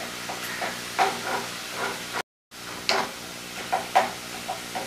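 A masala of ginger-garlic paste, turmeric and salt sizzling in oil in a kadai while a spatula stirs it, scraping and tapping the pan every second or so. The sound drops out for a moment about halfway through.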